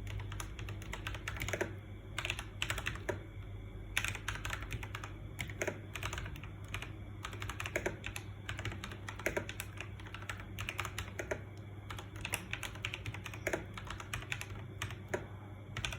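Typing on a Logitech G Pro X mechanical keyboard fitted with Akko Ocean Blue switches: a quick, irregular run of key clacks with a few brief pauses.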